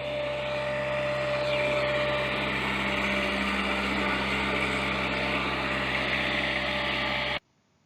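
Skid-steer loader engine running steadily, a low even hum with a hissing, whirring top; it cuts off suddenly near the end.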